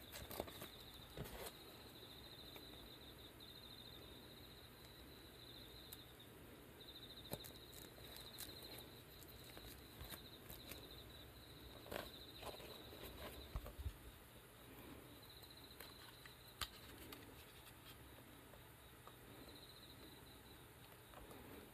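Faint cricket chirping in repeated trains of rapid pulses, coming and going, over near silence. Occasional light clicks and taps as the shoe parts are handled.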